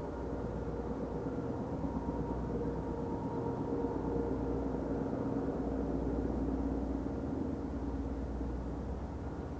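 Two DF4B diesel-electric locomotives with V16 diesel engines, heard working as they haul a long passenger train toward the camera: a steady low engine drone that swells slightly and then eases a little near the end.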